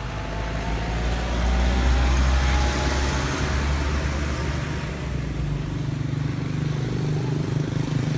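A motor vehicle's engine running with a steady low hum, growing louder about a second and a half in and easing off again after about three and a half seconds.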